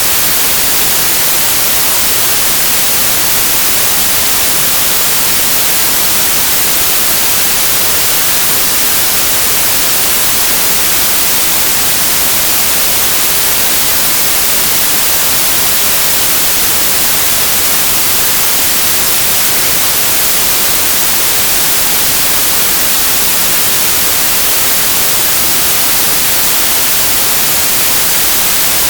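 Steady, loud hiss like white noise, strongest in the highs, with no change or events in it.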